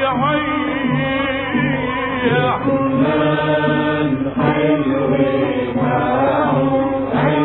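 A Lebanese song playing: a man singing held, wavering notes over instrumental accompaniment with a steady low bass line.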